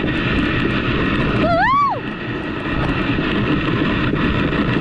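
Mountain coaster sled running down its rails: a steady rumble of the wheels with wind on the microphone. About a second and a half in comes a short high 'woo' from a rider, rising then falling in pitch.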